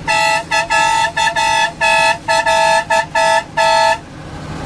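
Newly installed truck horn, two notes sounding together, blown in a quick, uneven series of about a dozen honks of different lengths, ending about four seconds in.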